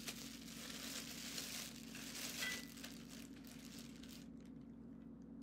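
Thin clear plastic bag crinkling as hands open it and reach in for a handful of greens. The crinkling stops about four seconds in.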